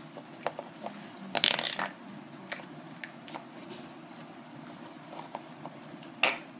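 Slime putty and its small plastic pots being handled: scattered light clicks, a louder brief rustling squish about a second and a half in, and a sharp click near the end.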